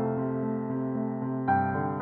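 Slow piano music with held chords, a new chord struck about one and a half seconds in.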